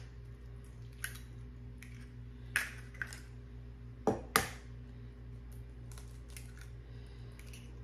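Eggs being cracked against a mixing bowl and their shells pulled apart: several sharp cracks and clicks, the loudest about two and a half and four seconds in, with lighter ticks in between and a steady low hum underneath.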